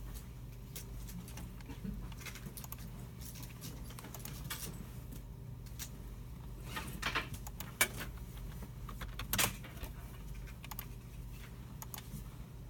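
Computer keyboards and mice being used: scattered key taps and mouse clicks, irregular and unhurried, over a steady low hum. A louder flurry of clatter comes a little past halfway, and another a couple of seconds later.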